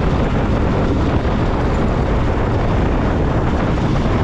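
Steady wind and road noise from a motorcycle riding along at speed: an unbroken, deep rushing sound.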